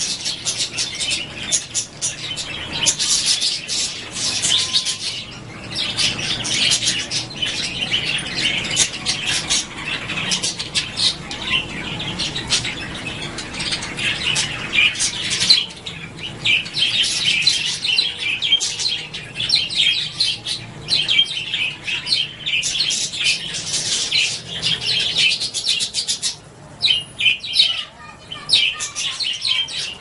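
A flock of small aviary parrots chattering, a dense run of rapid high chirps from many birds at once, with brief lulls about halfway through and near the end.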